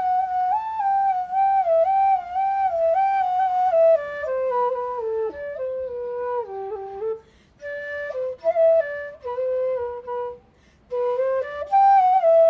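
Background music: a solo flute playing a slow, stepwise melody, pausing briefly twice.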